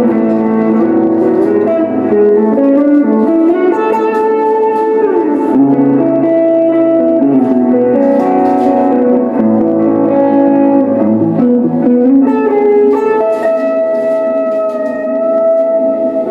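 Telecaster-style electric guitar played through a Boss ME-80 multi-effects unit with ambient and distortion effects: long, layered, overlapping notes, with one note sliding down in pitch about five seconds in.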